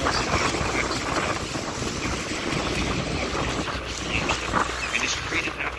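Wind buffeting the microphone over the steady rush of the waterfall and its spray.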